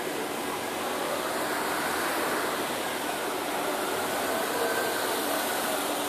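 Road traffic going past, a steady rush of noise that swells a little through the middle.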